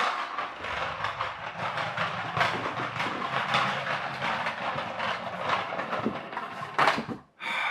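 Rubber-band-powered plastic LENA toy tractor rolling across a wooden parquet floor, its plastic wheels and body giving a continuous clattering rattle. It ends with a couple of sharp knocks near the end.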